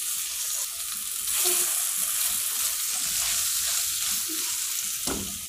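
Boiled taro root slices sizzling in hot coconut oil with green chillies as they are tipped into the pan and stirred with a silicone spatula. The hiss grows louder about a second in.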